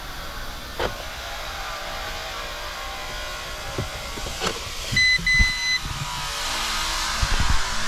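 Scattered knocks and clicks, then two short electronic beeps about five seconds in, the second longer than the first. A steady hiss builds over the last two seconds.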